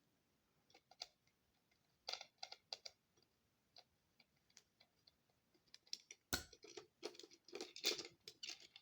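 Faint, scattered clicks and taps of a screwdriver working at small screws in the plastic housing of a sound machine being taken apart. A few clicks come about two seconds in, and a denser run of clicks and rattles from about six seconds in.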